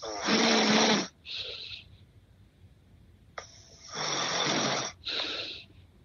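A man snoring in his sleep: two snores about three and a half seconds apart, each a long loud snore followed by a shorter, softer breath sound.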